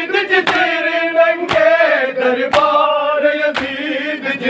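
Men's voices chanting a Punjabi noha (mourning lament) in chorus, cut by sharp unison chest-beating slaps of matam about once a second, four times.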